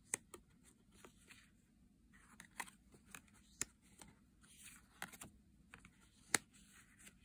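Thick laminated tarot cards being turned over and laid down one by one: faint, scattered soft clicks and brief swishes of card sliding on card, the sharpest click about six seconds in.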